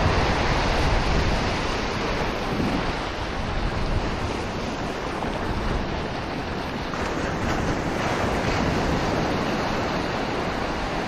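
Small waves breaking and washing in over shallow sand, a steady rushing surf, with wind rumbling on the microphone.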